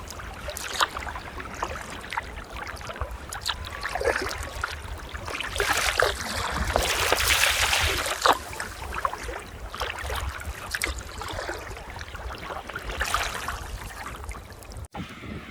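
Water splashing and lapping around a sea kayak under way, with irregular paddle-stroke splashes and a louder rush of water around the middle.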